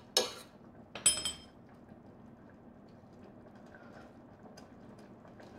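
Metal spoons clinking against a stainless steel saucepan: a sharp clink, then a second, ringing clink about a second later.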